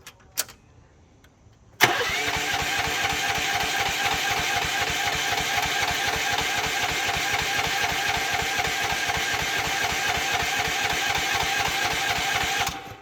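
Small engine of a Rippa Mule Trac mini excavator, set at one-third throttle, catches suddenly about two seconds in. It runs steadily for about eleven seconds, then cuts off abruptly near the end.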